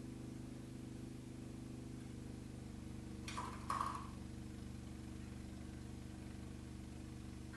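Two-stage snowblower's small gasoline engine running steadily while it throws snow. Two short higher-pitched sounds come a little past three seconds in.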